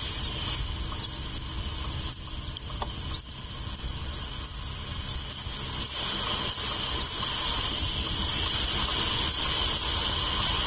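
Steady insect chorus, a continuous high trill that grows a little louder about six seconds in, over a low steady rumble.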